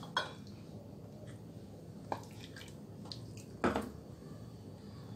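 Steel mixer-grinder jar and spoon knocking and clinking against a bowl as thick ground paste is scraped and shaken out onto minced meat: a few scattered short knocks, the loudest a little over halfway through.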